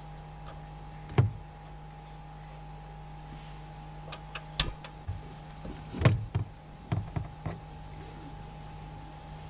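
Scattered knocks and clicks of kitchen handling as burger bun halves are set into a non-stick frying pan on a portable camp stove, loudest about a second in and about six seconds in, over a steady hum.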